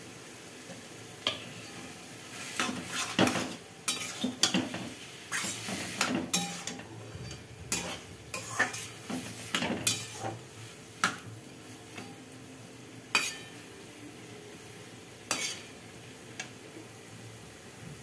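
A flat metal spatula stirs chopped bottle gourd in a metal kadai, scraping and clinking against the pan at irregular moments. The stirring stops shortly before the end, leaving a faint steady sizzle.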